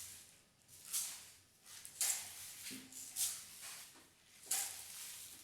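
Rain stick being shaken, giving short rattling, hissing swells about once a second with brief quiet gaps between.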